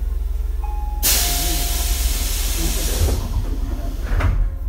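Sudden loud hiss of compressed air released from a Tobu 8000-series train's pneumatic system about a second in, fading away over the next two seconds, with a short extra puff near the end. A steady low hum runs underneath.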